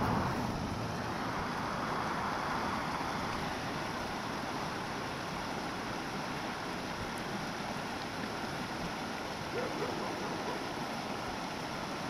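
Shallow creek water running over rocks, a steady rushing sound, with wind on the microphone.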